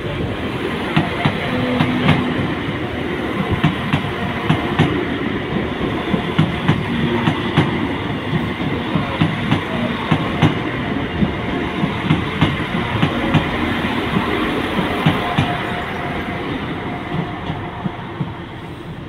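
Northern Ireland Railways diesel multiple unit passing close by, its wheels clicking over the rail joints in a steady run of clacks over the train's running noise. The sound eases off near the end as the train moves away.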